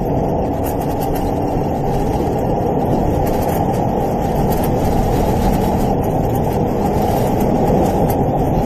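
A steady rumble of road and engine noise inside a moving police cruiser, even in level, with no siren tone standing out.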